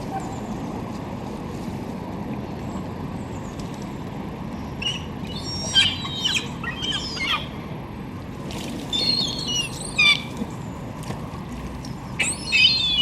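Birds calling in three short bursts of quick, chirping calls, about five, nine and twelve seconds in, over a steady low rumble.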